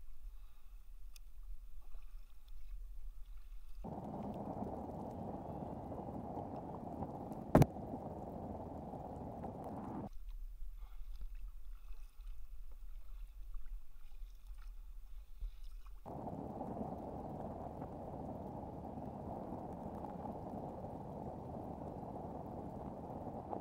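Muffled wash of water and wind around a paddled kayak. Twice it drops away for a few seconds to a low hum, and a single sharp click comes about seven and a half seconds in.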